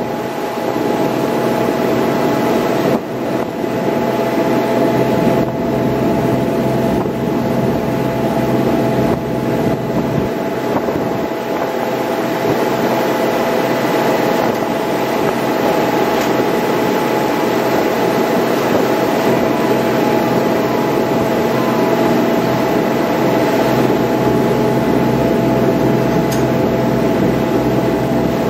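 Passenger shuttle boat's engines running steadily under way, a constant drone with a few steady hum tones over a dense rush of noise.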